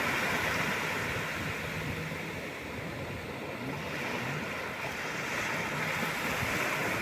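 Atlantic surf washing in steadily, ebbing a little about halfway through and building again toward the end, with wind on the microphone.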